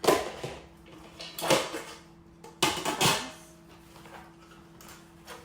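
Camping cookware pots, lids and plates clattering and knocking together as they are stacked and packed into a carry bag, with three bouts of clatter in the first three seconds and quieter handling after.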